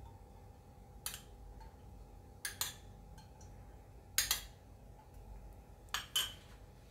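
A metal spoon clinking against a small steel cup as the last of the cooking oil is scraped out, four short clinks or double clinks spread about a second and a half apart.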